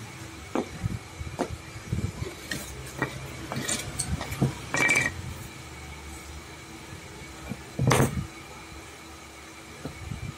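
Scattered knocks and clinks, the loudest about eight seconds in, over a faint steady hum.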